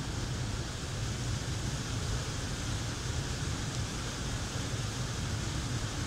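Steady rushing roar of a waterfall pouring into a river, an even noise without distinct events.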